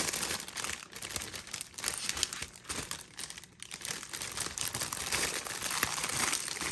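Plastic snack-bread wrapper crinkling in irregular bursts as it is handled and pulled at to open.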